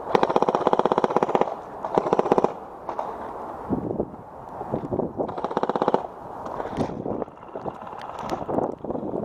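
Airsoft guns firing on full auto in rapid bursts: a long burst at the start, a shorter one about two seconds in, another about five and a half seconds in, and scattered shots in between.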